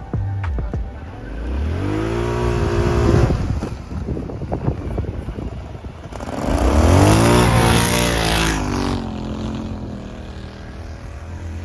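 Polaris Scrambler ATV engine revving up twice as it drives through deep snow, its pitch rising about a second in and again about six seconds in, then settling back.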